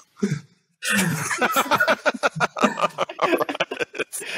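Several men laughing together with overlapping voices, breaking out about a second in.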